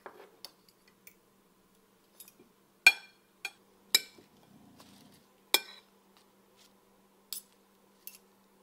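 Metal salad servers clinking against a ceramic serving bowl and plate while salad is served. There are about half a dozen sharp clinks, three of them loud and ringing, with a faint steady hum underneath.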